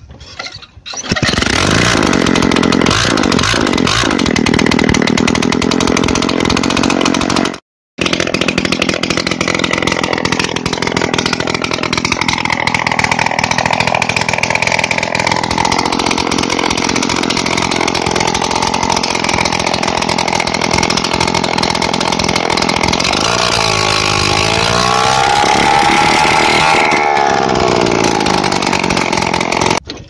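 TVS 50 moped's 50cc two-stroke single-cylinder engine running loud with its silencer removed, exhaust blasting straight out of the bare port. It starts up about a second in, breaks off briefly once, then runs on with the revs rising and falling a few times near the end before it dies away.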